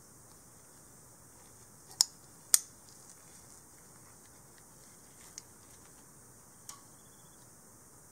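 Two sharp clicks about half a second apart, then two faint ticks: the metal trigger guard and aluminium grip frame of an E-11 blaster replica knocking together as the guard is fitted in place.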